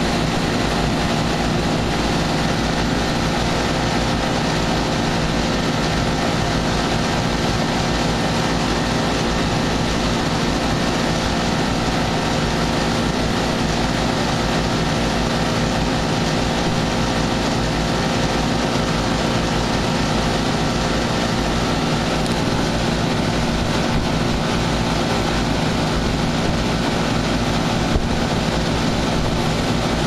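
Carrier Gemini heat pump outdoor unit running, its two three-bladed condenser fans blowing air. The sound is a steady rush of air over a steady hum made up of several tones.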